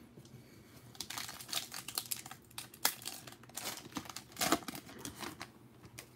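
Foil wrapper of a 2020 Panini Prizm hobby card pack being torn open and crinkled by hand. A run of crackling rips and crinkles starts about a second in, with the two sharpest tears near the middle and toward the end.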